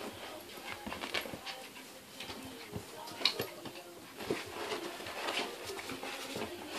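Puppy and yellow Labrador play-wrestling: panting and scuffling on the bedding, with a few short sharp clicks, the loudest about three seconds in.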